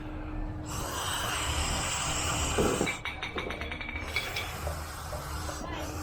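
Air hissing from a pump inflating a vinyl pool float, with a short run of rapid clicks about three seconds in.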